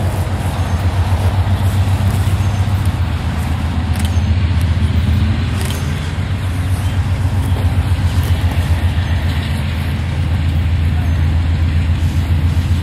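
Approaching diesel locomotive, its engine running with a steady low, pulsing rumble.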